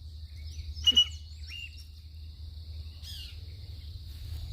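Short bird chirps, a loud close one about a second in and fainter ones after, over a steady high insect buzz and a low outdoor rumble.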